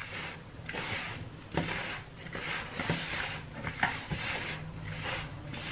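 A hand rubbing and squeezing rice flour and powdered sugar in a plastic bowl, mixing it into a dough without water. It comes as a string of soft scrunching, rubbing strokes, about one or two a second.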